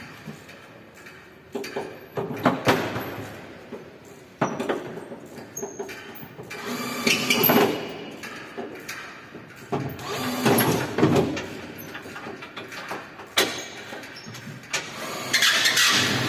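Irregular metal clanks, knocks and scraping of hand tools as a worker unfastens fittings on an amusement-ride car, coming in several bursts with quieter gaps between.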